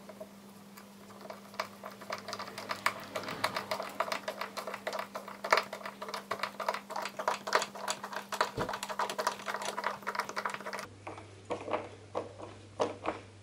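Wood screw being driven into a wooden board with a hand screwdriver: a fast, irregular run of sharp clicks and creaks as the threads cut into the wood, thinning out near the end.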